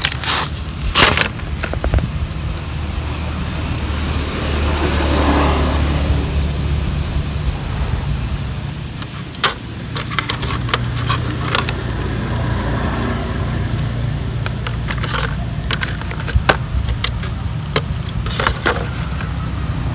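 Motor traffic running on a nearby road, a steady deep drone that swells about five seconds in, with scattered clicks and rattles from a phone box and its packaging being handled.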